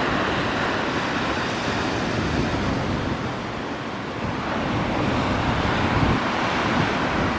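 Wind rumbling on the microphone over the steady wash of surf.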